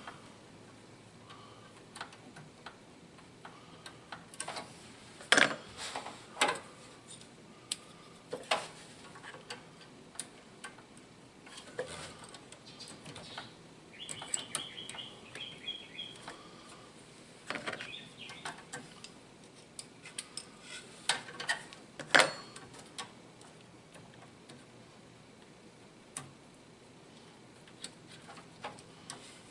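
Scattered small metallic clicks and taps of a brake line fitting and tools being handled at a brass tee, with a short high scrape about halfway through, as a fitting is tried into its threads.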